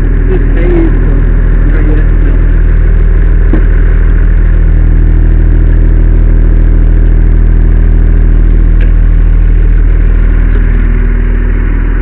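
Fire truck engine idling steadily close by, a constant low hum.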